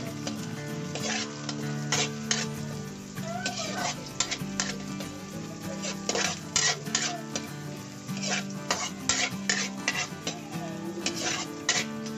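Food sizzling in hot oil in a pan while a cooking utensil stirs it, clicking and scraping against the pan in irregular bursts.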